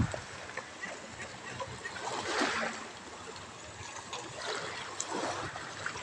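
Small waves lapping and washing over a pebbly shoreline, swelling twice: once about two seconds in and again around five seconds.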